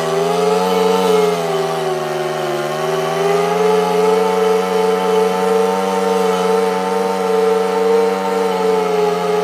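Scag lawn mower's engine running steadily at high throttle; its pitch sags briefly a couple of seconds in, then recovers and holds.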